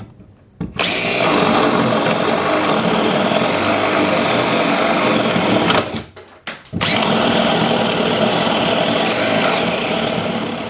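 DeWalt DC970 18-volt cordless drill boring into a 2x8 wooden plank with a 1.5-inch spade bit, the motor running under load. It runs for about five seconds, stops briefly, then starts again and runs for about four more seconds.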